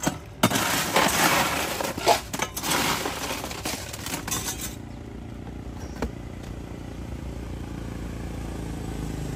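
Ice being scooped from a cooler into a plastic cup: about four seconds of crunching and clattering with sharp clicks. After it, a low engine hum of a passing vehicle grows louder near the end.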